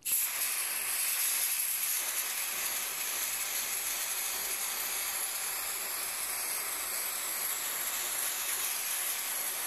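Aerosol can spraying impregnating oil onto a foam air filter, one long continuous hiss that stops abruptly.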